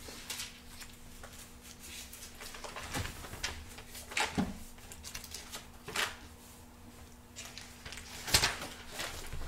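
Thin Bible pages rustling as they are turned and leafed through by hand, with a few soft knocks of hands on the book and pulpit, the strongest near the end. A faint steady hum runs underneath.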